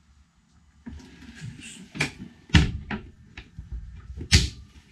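Teak-and-holly floor hatches in a boat's cabin sole being worked by hand: a few sharp knocks and clunks of the hatch lids and latches. The loudest come about two and a half and four and a half seconds in.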